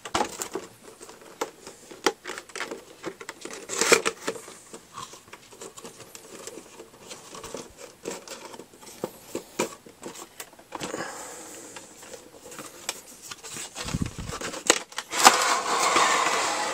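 Cardboard box and clear plastic tray of an action figure's packaging being handled: scattered clicks, taps and crinkles, growing louder near the end as the inner box slides out of its sleeve.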